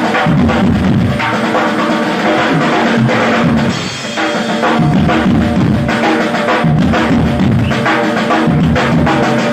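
Drum kit played live in a dense, fast solo passage, with snare and bass drum strokes. Held pitched notes sound underneath, and there is a brief drop in the drumming about four seconds in.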